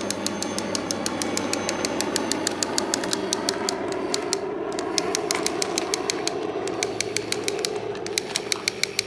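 Battery-powered Hess toy helicopter switched on and running: a steady whir with a rapid, even clicking of about six clicks a second.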